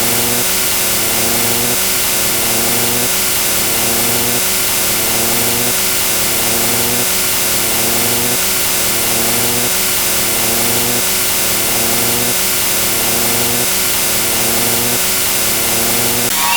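Motorcycle engine sound effect looped over and over, its pitch rising within each cycle and repeating about once a second.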